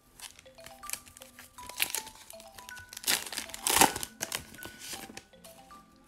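Foil wrapper of a 2006-07 Fleer hockey card pack crinkling as it is handled and torn open, loudest around three to four seconds in. Light background music plays underneath.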